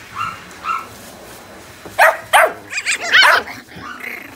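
Puppy barking: two sharp barks about two seconds in, then a quick run of high-pitched yips and whines.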